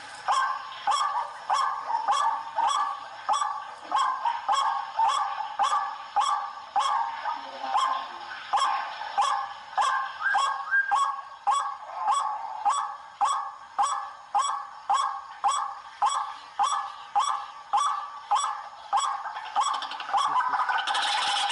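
White-breasted waterhen calling: a long, even series of repeated notes, about two a second. The series gives way to a denser, more continuous sound near the end.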